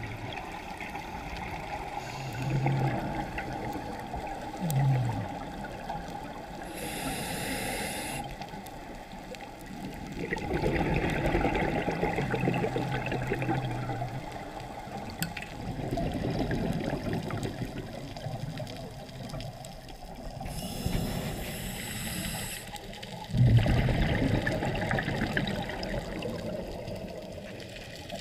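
Scuba diver breathing through a regulator underwater, muffled by the camera's waterproof housing: twice a short hiss of inhaling, each followed a couple of seconds later by several seconds of bubbling, rushing exhaust bubbles.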